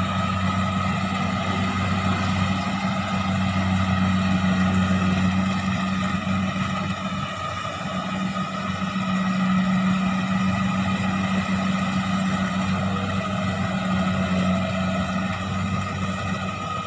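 Diesel engine of a rice combine harvester running steadily in a muddy paddy, a low hum that eases a little about seven seconds in and then rises again.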